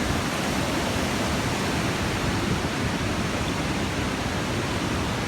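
Steady rushing noise with a heavy low rumble, even in level throughout.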